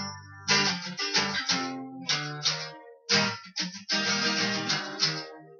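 Twelve-string acoustic guitar strummed in a steady rhythm, an instrumental passage with no singing, broken by short pauses about half a second in and again around three seconds in.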